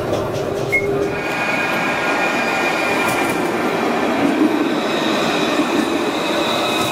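Dublin Luas light-rail tram passing close by: steady running noise of the car on its rails, with a steady high-pitched whine from about a second in.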